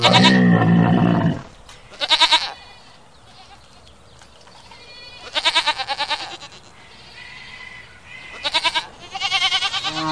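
Goat bleating about five times in wavering, quavering calls; the first, at the start, is the longest and loudest.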